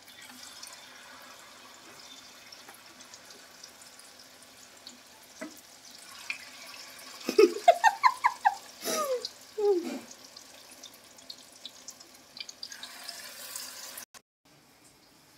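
Corn fritter batter frying in a wok of hot oil: a steady sizzle and bubbling. About seven seconds in, a short run of rising and falling chirps is the loudest sound, and near the end the sizzle drops away suddenly.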